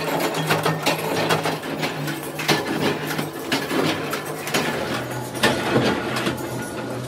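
Thin sheet-metal strips rattling and clicking as they are wiped and shifted by hand, with scattered sharp metallic knocks. A steady workshop machine hum runs underneath.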